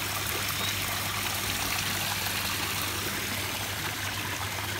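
Water pouring steadily from an inlet spout into a garden fish pond, splashing on the surface, over a steady low hum.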